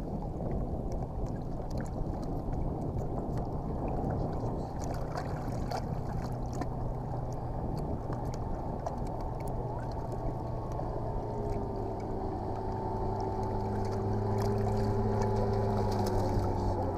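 Wind and water noise around a bass boat, dense and low. From about ten seconds in, a steady electric hum with several tones joins it, from the bow trolling motor holding the boat while the angler fishes.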